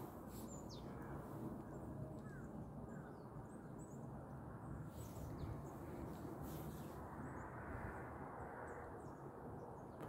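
Faint outdoor ambience: a steady low background hiss with a few faint, short bird chirps scattered through it.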